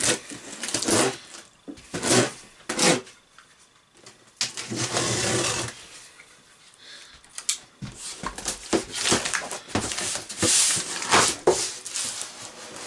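Utility knife slicing the packing tape on a cardboard box in several short scraping strokes, then a longer scrape. Cardboard flaps and packing rustle and crackle from about eight seconds in as the box is opened.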